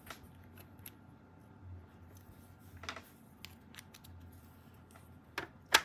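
Fischertechnik plastic building blocks handled and fitted together: a few light scattered clicks and rustles, with the sharpest click near the end.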